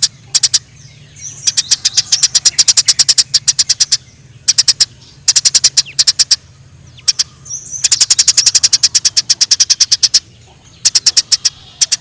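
Eurasian tree sparrows (burung gereja) giving rapid, sharp chirps in fast runs of about ten a second, the agitated chatter of sparrows squabbling. The runs come in bursts of one to three seconds with short pauses between them.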